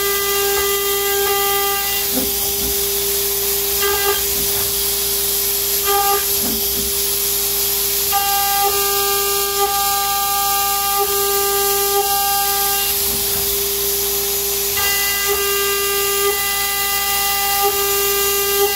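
CNC router spindle running a 2.5 mm single-flute end mill through aluminium plate: a steady high whine over a constant hiss from the air nozzle. A ringing cutting tone drops out and returns several times as the tool moves through the slot pockets.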